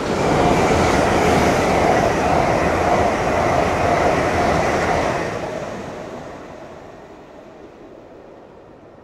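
Passenger train passing close at speed: a loud rush of wheels on rail and moving air for about five seconds, then fading away as it draws off down the line.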